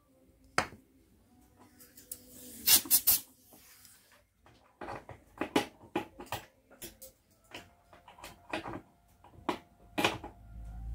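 Irregular clicks and knocks of hard objects being handled, with a cluster of sharper clacks about three seconds in and a run of scattered knocks in the second half.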